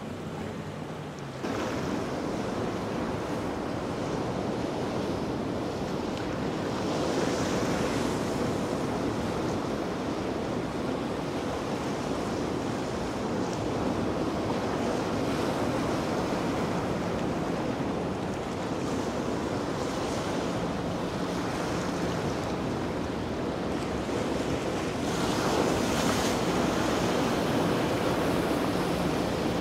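Surf breaking and rushing, with wind buffeting the microphone; the wash swells louder about a quarter of the way in and again near the end.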